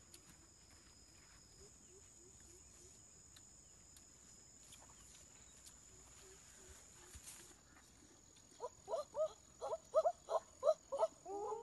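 An animal calling in a rapid series of short, loud pitched notes, about four a second, starting a few seconds before the end. Under it runs a steady high-pitched insect drone, with faint rustling of footsteps through grass.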